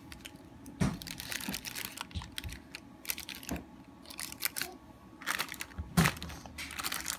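Silicone spatula working thick fudge in a parchment-lined baking dish: irregular scrapes and taps, with the parchment paper crinkling. A sharper knock about six seconds in.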